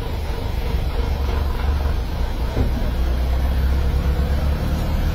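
Steady low rumble of outdoor street background noise, with a faint steady hum above it.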